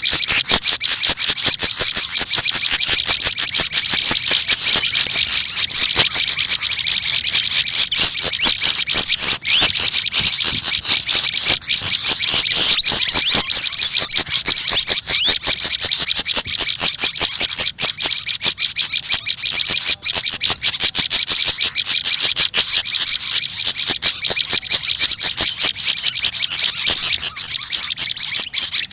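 Small songbirds, the Malaysian pied fantail (sikatan kipas) and the prenjak lumut, calling in a dense, rapid, unbroken stream of high chirps and trills.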